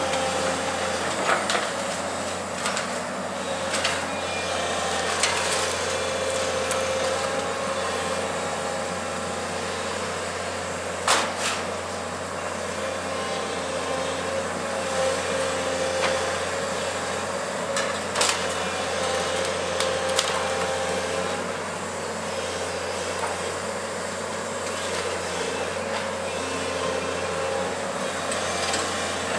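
Hyundai 180LC-7 crawler excavator running steadily with a constant whine while it works a demolition grapple in rubble. Sharp knocks and clatter of broken masonry come every few seconds, the loudest about eleven seconds in.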